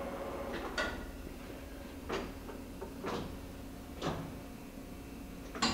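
Speed-change levers on a Bridgeport-Romi EZ Path lathe's gear headstock being shifted with the spindle stopped: five short metallic clunks roughly a second apart, over a steady low hum.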